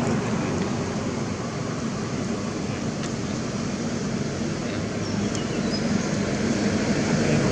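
Steady rumbling outdoor background noise, with a few faint high chirps about five seconds in.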